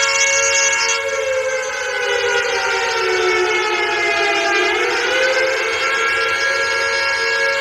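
Air raid siren wailing on a steady pitch with many overtones. About a second in, its pitch slowly sags, bottoms out after about four and a half seconds, then climbs back to the steady tone.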